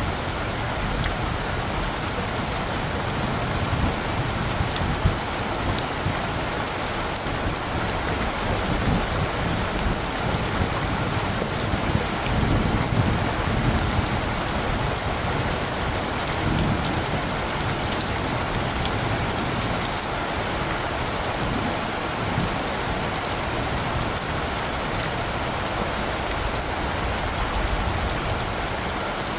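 Steady rain falling on surfaces, with individual drops ticking. Low rumbles of light thunder swell through the middle.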